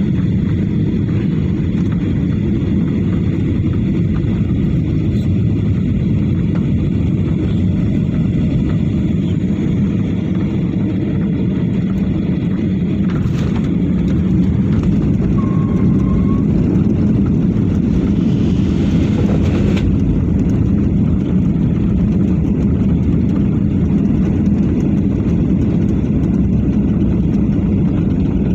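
Airliner cabin noise during landing: a steady, loud roar of engines and airflow heard from inside the cabin, with a constant low hum, and a short rush of hiss about two-thirds of the way through.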